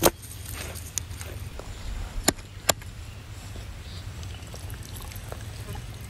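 Raw T-bone steaks being handled and set down on a wooden cutting board, with a few sharp taps and knocks of meat and bone on the wood over a steady low rumble.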